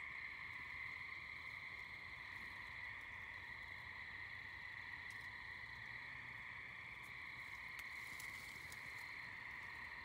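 Steady night chorus of calling animals: a continuous, even high drone with no breaks, faint throughout. A few faint ticks sound about eight seconds in.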